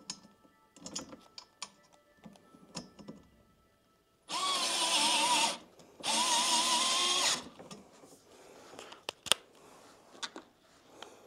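Bosch cordless screwdriver driving screws in two runs of about a second and a half each, its motor whine wavering. Small clicks and knocks of handling come before and after the runs.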